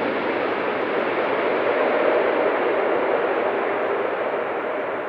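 Airbus A380 on final approach, its four jet engines and airframe making a steady rushing roar that slowly fades toward the end.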